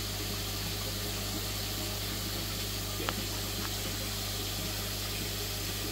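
Aquarium air-driven sponge filter and its pump running: a steady low hum under an even hiss of bubbling water. Two small clicks sound about three seconds in.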